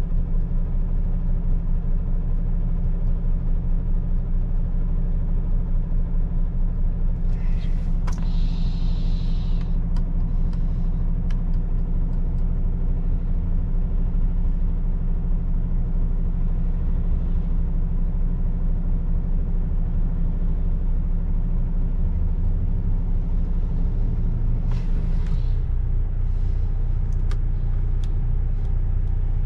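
MAN truck's diesel engine and road noise running steadily at cruising speed, a deep continuous rumble. Two brief hisses break in, one about eight seconds in and another near 25 seconds, when the engine note also shifts.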